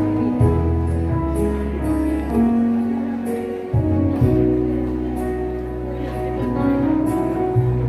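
Live praise-song music: long held bass notes that change every second or two under sustained chords, with light percussion ticks throughout.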